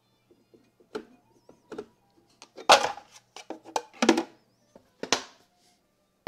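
Handling noises from the knife and sharpening gear: a string of separate sharp clicks and knocks, the loudest cluster about halfway through and two more strong knocks about four and five seconds in, over a faint low hum.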